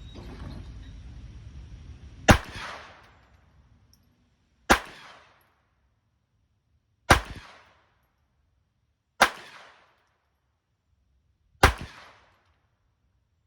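Pistol fired five single shots, spaced about two to two and a half seconds apart: one timed-fire string of five shots. Each shot is sharp and dies away in about half a second.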